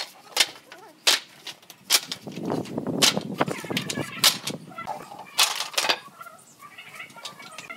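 Reclaimed pallet boards and wooden beams dropped one after another onto a pile on a concrete floor: a series of sharp wooden clacks, roughly one a second.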